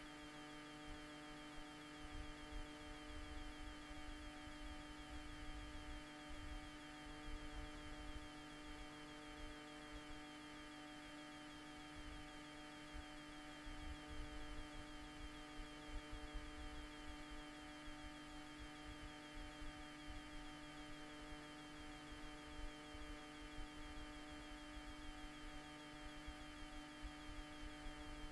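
Steady electrical hum with a low, unsteady rumble beneath it, and a fainter higher tone that comes and goes every several seconds.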